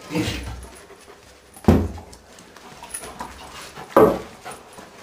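A dog panting, with two short, sudden louder sounds, one just under two seconds in and another about four seconds in.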